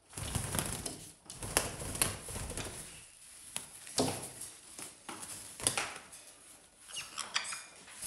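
Pet parrots scuffling among toys and perches: irregular clicks, knocks and rustles, possibly with wing flaps, and a few short high squeaks about seven seconds in.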